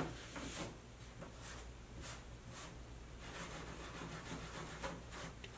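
The scrubby side of a sponge rubbing damp paper off a laser-print transfer on a canvas board, in short scratchy strokes about two a second as the wet paper pills away. A sharp knock at the very start.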